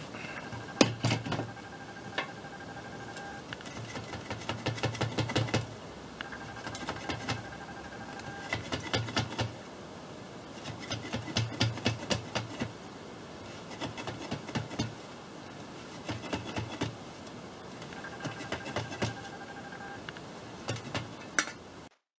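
Plastic rope rubbing as woven strands are pushed and packed together with a flat metal bar, in repeated bursts of quick taps and knocks.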